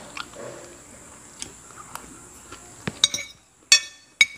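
Metal spoon and fork clinking and scraping against a ceramic plate, with a few sharp ringing clinks from about three seconds in.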